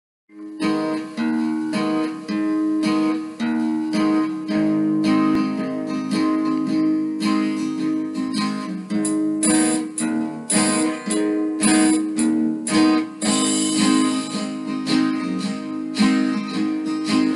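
Music: an acoustic guitar strumming chords in a steady rhythm, starting about half a second in.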